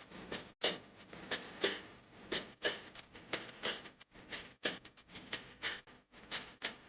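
Kitchen utensil working food in a cooking pan: a run of short scraping swishes, about two or three a second.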